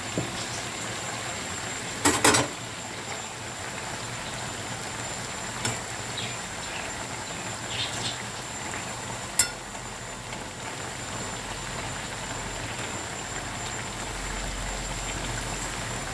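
Flat beans and eggplant in a metal wok, bubbling and sizzling steadily in oil with mustard paste, while a metal spatula stirs the pan, knocking and scraping against it a few times, loudest about two seconds in.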